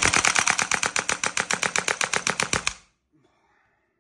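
WE AK PMC gas blowback airsoft rifle firing a full-auto burst: a fast, even string of shots that stops about three seconds in.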